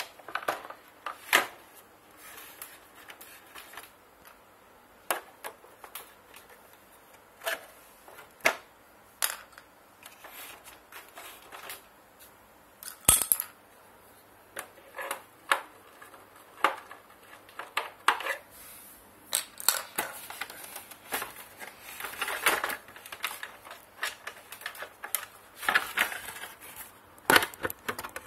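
Plastic body of an Ultra Grind Plus rice grinder being handled and turned over on a tile floor: scattered clicks, knocks and short scrapes, with sharp knocks about 13 seconds in and near the end.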